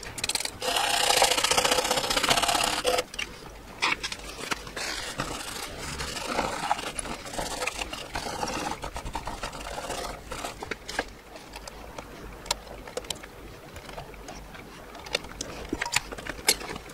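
A loud hiss for about two seconds near the start, then a paper tissue rubbing and scraping over a circuit board, with scattered small clicks.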